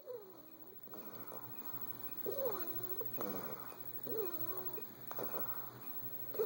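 A sleeping pet snoring: four pitched snores, each dropping in pitch, about two seconds apart, with short noisier breaths between.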